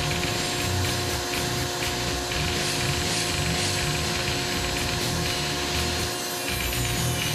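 Foredom flexible-shaft rotary tool running with a steady whine while its carbide-tooth carving burr grinds into white cedar in uneven rasping passes.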